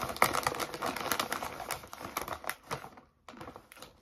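Crunchy, thick-cut Lay's Crunch Tators potato chips being chewed close to the microphone while the chip bag crinkles: a dense run of rapid crackles and clicks that thins out to a few scattered clicks after about three seconds.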